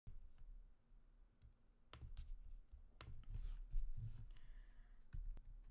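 A handful of faint, sharp single clicks from working a computer, spread out over the seconds, with a soft rustle between them.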